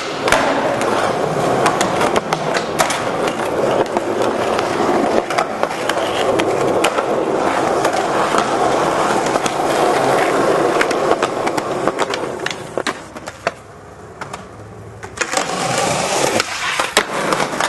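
Skateboard wheels rolling on concrete, with repeated sharp clacks of the board popping and landing. The rolling drops off for a couple of seconds past the middle, then picks up again.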